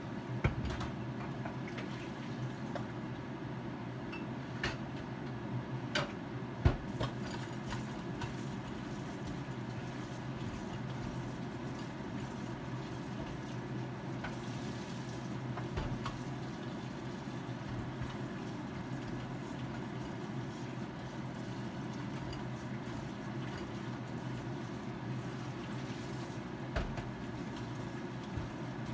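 Steady kitchen hum with occasional sharp clinks and knocks of pots, pans and utensils during cooking, the loudest knock about six seconds in.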